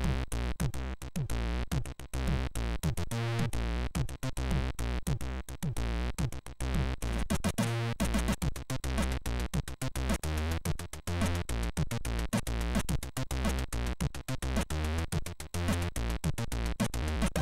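Chiptune from a Commodore 64's SID sound chip: synthesized bass notes under a steady beat of sharp drum hits with quick falling-pitch sweeps.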